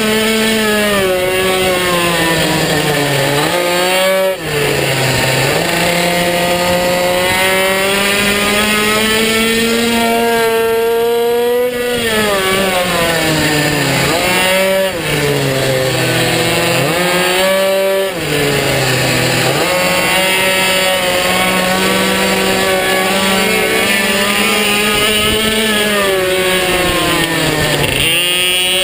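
Minibike engine heard onboard at racing pace, its pitch climbing as it revs out along the straights and falling as the rider slows for each corner, over and over. A few brief drops in the sound come where the throttle is shut.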